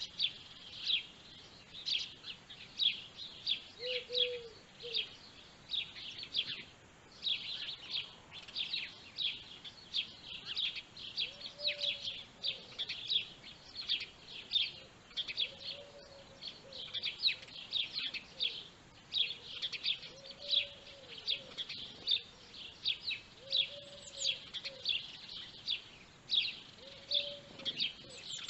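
Small birds chirping continuously in quick, dense calls, with a short low call repeating every few seconds.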